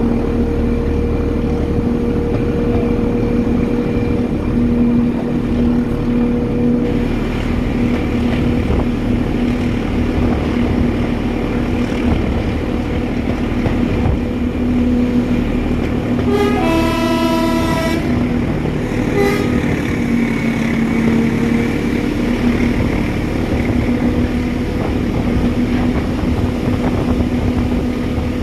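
Class 14 diesel-hydraulic locomotive running steadily ahead of the carriage, its engine drone over the rumble of the wheels on the track. About 16 seconds in the locomotive's horn sounds once for about a second and a half, then gives a brief short toot.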